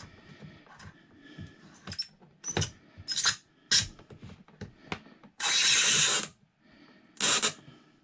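Plastic water-hose fitting being hand-tightened onto a tee adapter at a toilet's water inlet: scattered clicks, ticks and squeaks of plastic parts. Two louder rubbing noises stand out, a longer one about five and a half seconds in and a shorter one a little after seven seconds.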